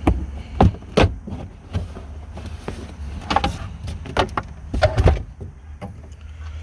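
Knocks and clicks of a BMW E90 trunk compartment cover being handled and opened to get at the battery. There are about half a dozen sharp knocks, the loudest within the first second and around five seconds in, over a steady low hum.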